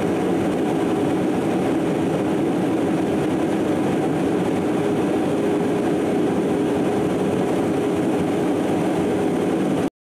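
Steady drone of aircraft engines and airflow in flight, with a steady hum in it, cutting off abruptly just before the end.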